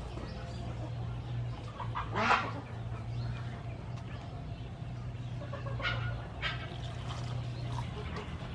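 Chickens clucking: a few short calls, the loudest about two seconds in and others around six seconds, over a steady low hum.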